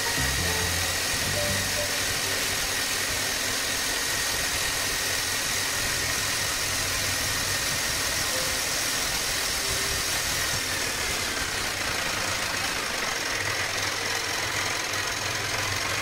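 Bosch GSH 11E electric demolition hammer running steadily on a no-load test after its armature was replaced. It is a constant motor and mechanism noise with a steady high whine. The repairer judges it to be running perfectly, with no sparking problem.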